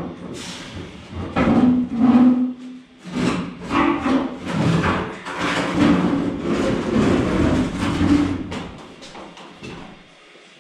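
Chevrolet S10 pickup's steel bed being dragged by hand off the frame rails: sheet metal scraping and grinding against the frame, with knocks and bangs. It dies down near the end.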